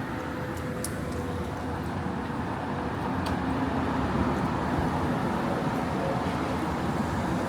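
City street traffic: a steady hum of passing vehicles, with a motor vehicle's engine growing louder from about three seconds in as it draws near.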